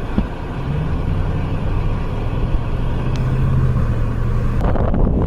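A motor vehicle's engine running steadily with a low hum that climbs slightly in pitch. Near the end the sound breaks into a rougher rumble.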